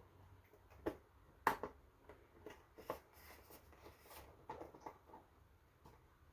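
Plastic clicks and light rubbing from handling a welding helmet while an auto-darkening lens cartridge is pushed into the shell. There are several sharp clicks, the clearest about one and one-and-a-half seconds in, then softer scraping.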